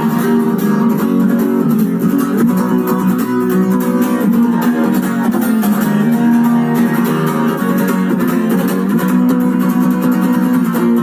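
Guitar strummed in chords, playing an instrumental passage without singing.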